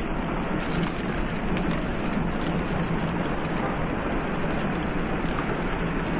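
A steady, even rushing hiss that is rain-like in character, with no clear pitch or rhythm.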